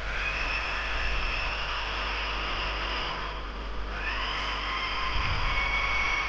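Electric multi-purpose drill boring a hole for the latch bolt in a wooden door frame, whining steadily. It runs in two spells with a short let-up about three and a half seconds in, the pitch climbing as it speeds up again.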